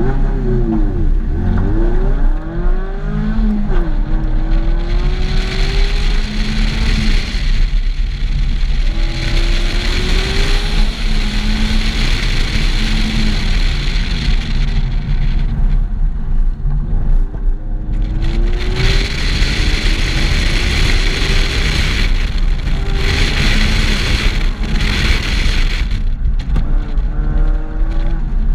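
Mazda MX-5 (ND) 2.0-litre four-cylinder engine heard from the open cockpit during an autocross run: the engine revs up and eases off again and again as the car accelerates and slows between cones. A steady rushing of wind and road noise runs under it and swells for long stretches.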